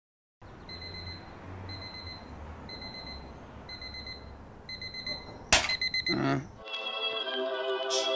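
Electronic alarm beeping in short high-pitched bursts about once a second, then a loud thud about five and a half seconds in. About a second later music starts.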